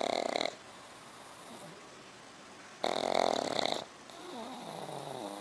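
Dog snoring in its sleep: two rasping snores about three seconds apart, each about a second long, with a quieter, whistling breath between them near the end.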